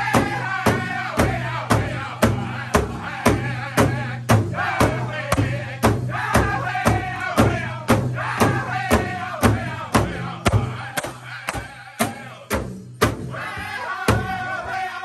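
Powwow drum group singing together over a steady unison beat on one large shared drum, about two and a half strikes a second. The beat drops out briefly near the end, then picks up again with the singing.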